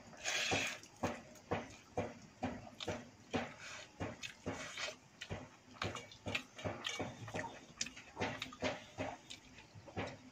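A person eating close to the microphone: wet chewing, lip-smacking and mouth clicks as he eats watery fermented rice (pakhala bhat) by hand, with squelches of the soaked rice being squeezed in the bowl. The noises come irregularly, about two or three a second.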